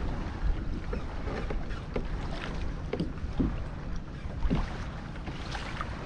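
Small waves slapping against a plastic kayak hull in light chop, a few soft knocks at irregular moments, over the low rumble of wind on the microphone.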